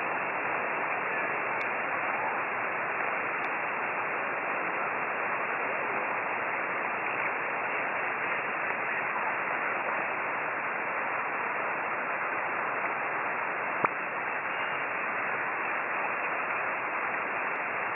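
FlexRadio shortwave receiver on the 10-metre band in upper sideband, giving steady band-noise hiss through its narrow filter with no signal on the frequency. There is a faint click about three-quarters of the way through.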